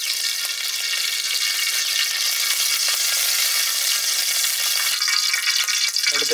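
Cooking oil sizzling in a hot aluminium kadai just after being poured in: a steady, dense hiss.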